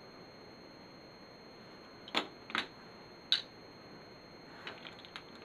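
Plastic LEGO pieces clicking as they are set down and pressed onto a baseplate: three sharp clicks a little after two seconds in, then a few fainter ticks near the end, over a steady faint hiss.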